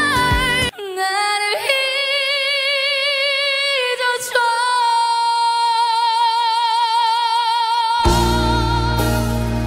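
A woman singing in Korean, with almost nothing behind her, holding long notes with vibrato. About four seconds in she jumps an octave and holds the high note for about four seconds. Just before that note ends, a full band with heavy bass comes in loudly underneath. For the first moment, before a cut, band music with singing is heard.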